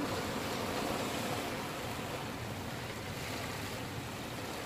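Sea waves washing and breaking over shoreline rocks: a steady rushing surf noise.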